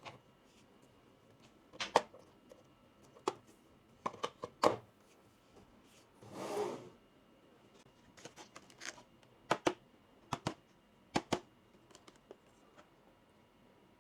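Small plastic toy kitchen pieces being handled: sharp clicks and taps as they are set down and fitted together, some in quick pairs, with a short rustling scrape about six seconds in.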